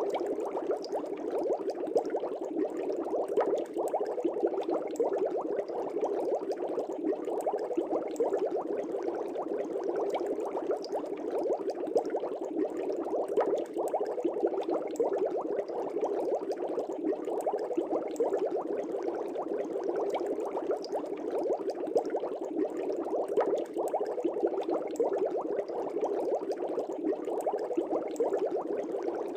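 Air bubbles streaming up through aquarium water, a steady dense burbling with small pops throughout.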